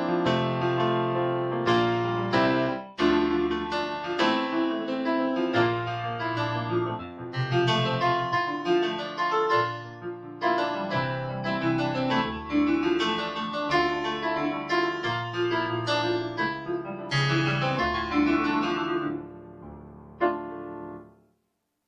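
Korg Pa700 arranger keyboard playing a piano-type factory voice, recorded straight from the keyboard: struck chords and melody notes that each ring and decay. The playing ends with a fading final chord about a second before the end.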